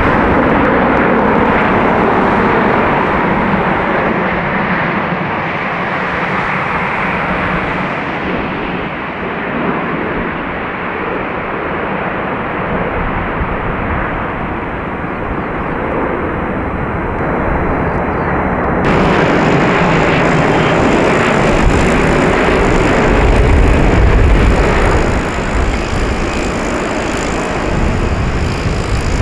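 Jet airliners landing: a steady, loud rush of engine noise. About two-thirds of the way in, the sound changes abruptly to a brighter noise with more deep rumble.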